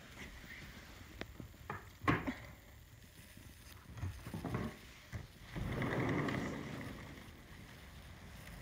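Handling and walking noise from a handheld phone: a few sharp knocks and thuds, then a rushing noise about five and a half seconds in that lasts over a second and fades.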